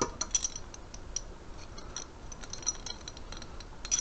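Light, scattered clinks and clicks of small metal items, a set of keys and small tools, being picked through in a toolbox tray.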